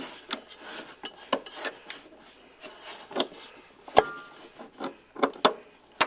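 Parking brake cable hardware being worked into place by hand: scattered small metal clicks with rubbing and scraping. A sharp metallic click about four seconds in rings briefly.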